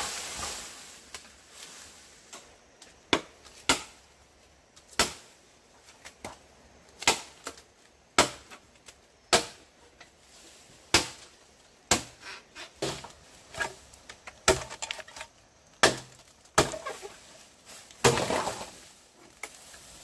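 Sharp, irregular blows struck on wood, roughly one a second, with a longer, rougher sound lasting about a second and a half near the end.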